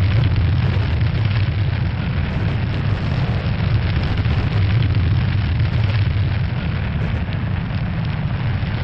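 Steady, deep rumble of a spacecraft entry capsule plunging through the atmosphere, a sound effect for the heat shield meeting the air at hypersonic speed.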